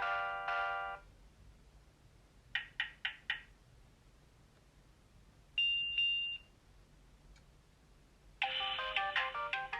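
Alcatel OT 735 mobile phone playing its built-in tones one after another through its small speaker: a short chord, then four quick beeps, then a brief two-part high tone. Near the end a polyphonic ringtone melody starts.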